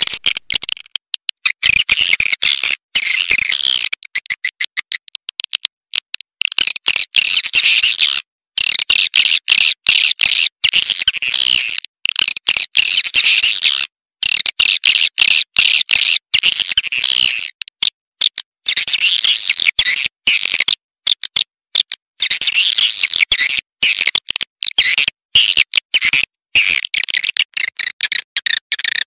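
Recorded swiftlet calls: a dense, high twittering chatter broken by many short gaps. It is a lure call played to draw swiftlets into a nesting house.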